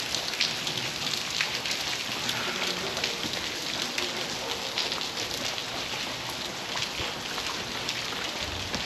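Steady rain falling on the street, with many close drops ticking sharply.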